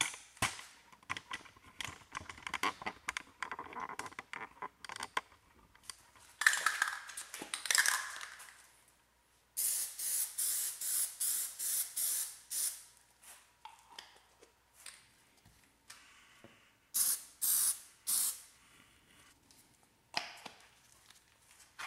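Aerosol can of Plasti Dip rubber coating spraying in short hissing bursts: a quick run of about eight around the middle, then three more near the end. Scattered clicks and taps come before the spraying.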